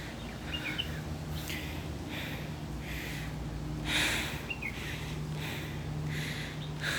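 A person breathing hard in a steady rhythm of quick puffs, as when climbing a hill on foot. A bird chirps briefly twice.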